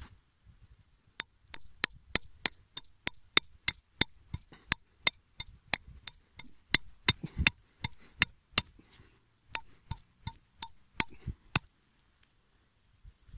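Steel hammer striking a metal trap stake, driving it into the ground to anchor a trap's chain. It lands about thirty sharp blows at roughly three a second, each with a brief high metallic ring, with a short pause about two-thirds of the way through.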